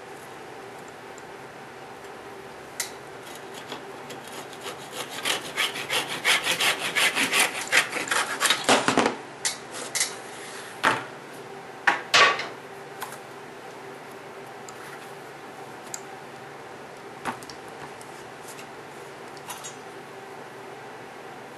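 Quick back-and-forth strokes of a small hand tool cutting into a wooden nutcracker for about six seconds, growing louder toward the end. A few sharp knocks and clicks of wooden parts on the bench follow, the loudest about twelve seconds in.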